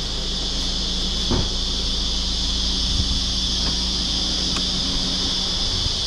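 Steady high-pitched drone of insects, with a steady low hum underneath and a couple of faint knocks.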